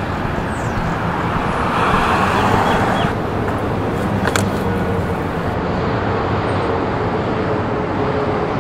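Outdoor street ambience: a steady rush of road traffic noise, swelling slightly a couple of seconds in.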